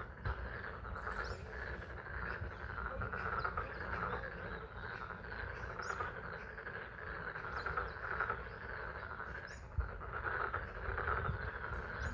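A dense chorus of frogs calling continuously at a pond in spring rain, with a steady low rumble underneath.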